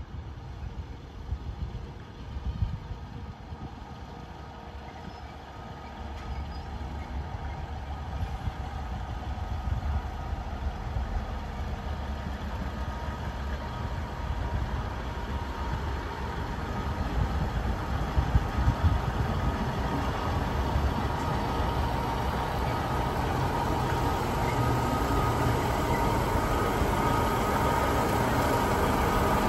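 NSW 620/720 class diesel railcar set approaching and drawing past, its engine and wheel noise growing steadily louder. A steady whine joins in and strengthens from about halfway.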